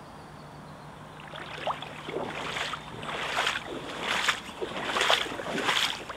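Footsteps wading through shallow floodwater: a splash and slosh with each stride, a little more than one a second, growing louder from about two seconds in.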